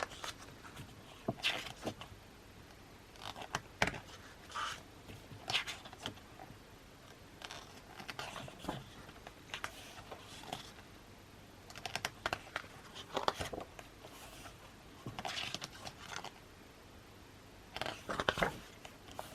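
Glossy pages of an album photobook being turned and handled: short paper rustles and light taps, one every second or two.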